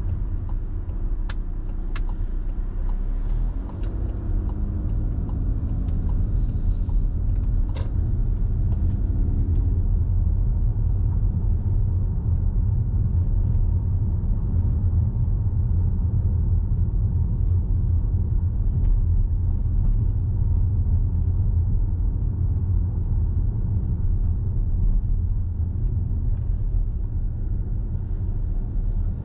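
Car driving along, with a steady low rumble of engine and road noise. The engine note rises a few times as the car pulls away, and a few sharp clicks come in the first several seconds.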